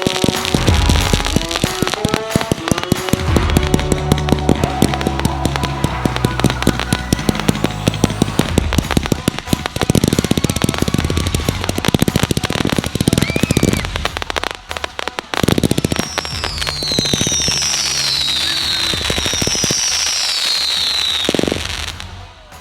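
Fireworks crackling and popping in rapid strings over background music, with several falling whistles in the last few seconds.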